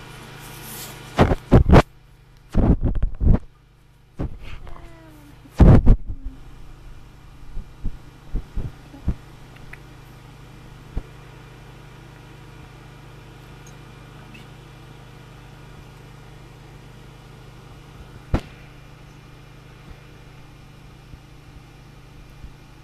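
Handling noise of a glass mason jar being held and turned in a hand close to the microphone: a cluster of loud knocks and rubs in the first six seconds, with a short squeak among them, then a few scattered light taps, over a steady low hum.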